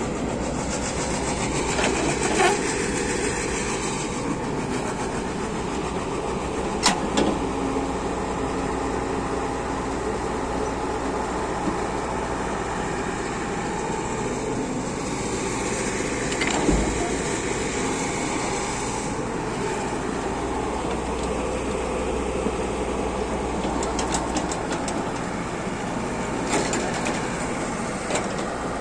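Komatsu mini excavator's diesel engine running steadily under hydraulic load while it digs earth and loads it into a dumper truck, with a few sharp knocks from the bucket and falling earth and rocks.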